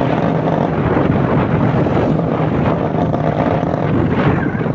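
Motorcycle engine running steadily while riding at road speed, heard from the bike itself, with wind noise on the microphone.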